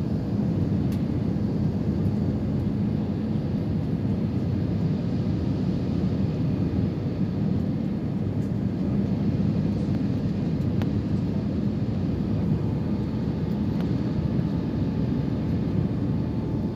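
Jet airliner cabin noise heard at a window seat in flight: a steady, even rumble of engines and airflow.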